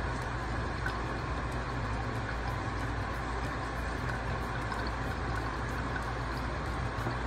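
Kitchen faucet running on its spray setting, a steady stream of water splashing onto a stainless steel sink and into the drain, with a low steady hum underneath.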